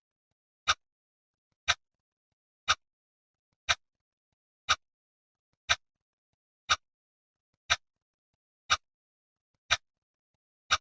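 Clock ticking steadily, one sharp tick each second with silence in between.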